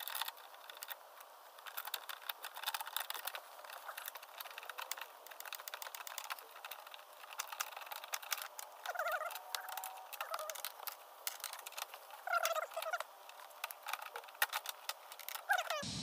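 Ratchet wrench with a small 10 mm socket clicking in quick, irregular runs as a tight nut is worked loose.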